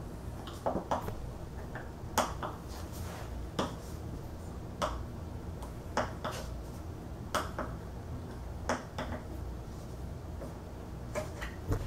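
Small metal assembly wrench clicking on a steel screw-in anchor as it is turned step by step into a particleboard bed leg: sharp metallic clicks about once a second, some in quick pairs, each time the wrench is turned and reset.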